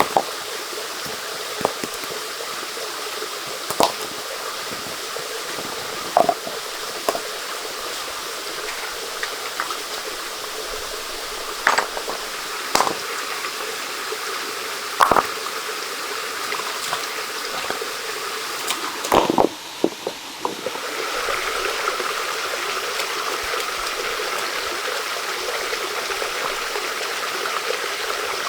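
Steady rush of running water with scattered sharp clicks and snaps over it. About twenty seconds in, the rush changes to a different, slightly louder steady flow.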